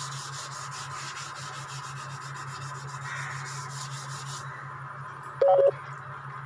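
Hand sanding with sandpaper on a scooter body panel: quick, even rubbing strokes that stop a little past four seconds in. About a second later comes a short, loud beep-like tone, over a steady low hum.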